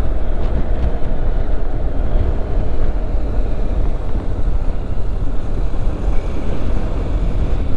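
Steady wind rush on a helmet microphone over a motorcycle engine running at speed while riding.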